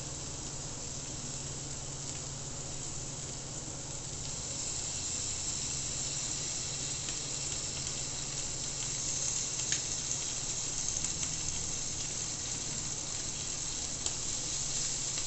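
Stuffed chicken breasts sizzling on a grill as honey glaze sauce is brushed on: a steady hiss that grows louder about four seconds in, with scattered pops and crackles.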